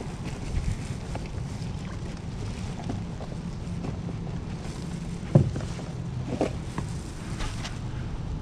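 Steady low rumble of wind on the microphone and water noise as a kayak moves along, with a few light knocks against the hull, the loudest about halfway through.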